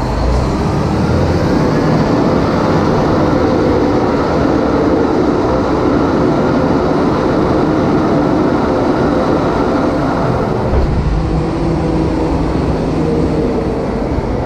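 Cat 740 GC articulated dump truck's diesel engine running at high idle while the hydraulic hoist raises the dump body. About eleven seconds in, the revs drop a little as the body nears full height: the assisted hoist system easing off to spare the hoist cylinders.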